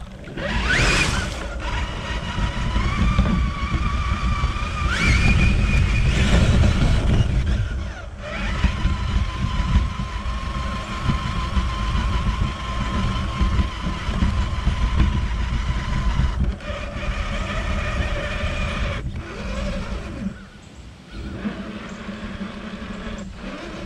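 Traxxas TRX-4 RC truck's electric motor and gear train whining as it drives, the pitch climbing with throttle and dropping away each time it lets off, several times, over a low rumble and rattle from the truck bouncing over rough, wet ground. Water splashes from the puddle near the start.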